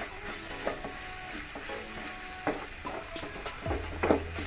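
Wooden spatula stirring and scraping onions and ground spices as they are sautéed in oil in an aluminium kadai, the mixture sizzling, with irregular scrapes against the pan. A low steady hum comes in near the end.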